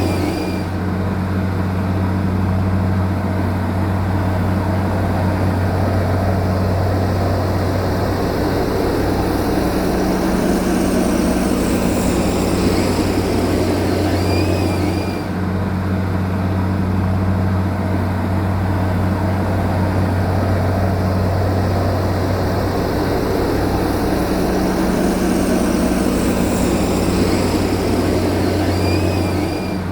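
Diesel engine of heavy earth-moving machinery running steadily with a deep, constant drone.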